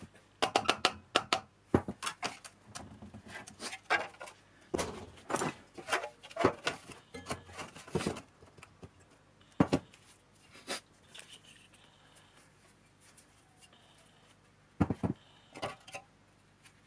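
Metal clanks, clinks and knocks from a rusty, 20-year-old Lotus Elise S1 blower being taken apart by hand, its steel housing and parts knocking together and against tools. A quick run of sharp clanks fills the first half, then a few separate knocks follow.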